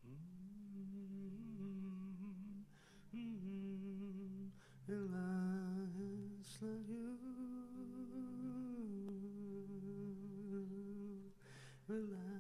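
A single voice humming a slow, wordless melody in long held notes, with a few short breaths between phrases.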